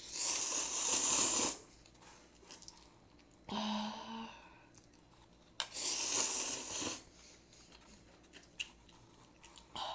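Instant ramen noodles slurped into the mouth from a bowl: two long slurps of about a second and a half each, one at the start and one about six seconds in, with a shorter sound in between around four seconds.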